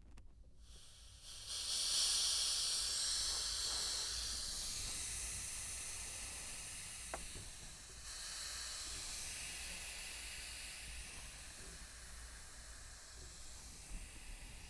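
Pressurised oxygen hissing out of the aircraft oxygen-servicing lines as about 2,000 PSI is bled off after filling. The hiss starts about a second and a half in, is loudest at first, then slowly weakens, with a brief drop about halfway through.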